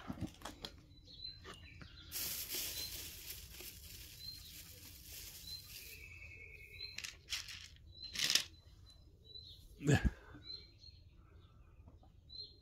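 A small bird chirping the same short, high note over and over, a little more than once a second. Under it come rustling and handling noises, with a hissing rustle for a few seconds near the start and a thump about ten seconds in.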